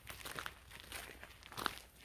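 Footsteps crunching on the ground: a few short, irregular crunchy steps.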